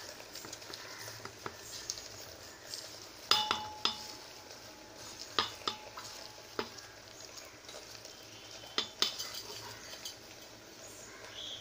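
A hand mixing and squeezing soft ragi flour dough with chopped onion and other bits in a metal pot. About eight sharp clinks and knocks against the pot break through the soft mixing, and the pot rings briefly after one of them, a little over three seconds in.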